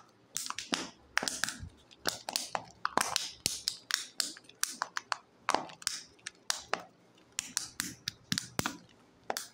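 Plastic wrapping of a surprise egg crinkling and crackling under the fingers as it is squeezed and worked open, in a quick irregular run of sharp clicks and crackles.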